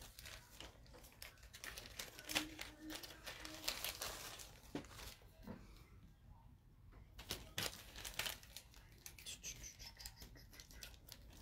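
Faint rustling and crinkling with scattered light clicks and taps as jewelry is handled by hand.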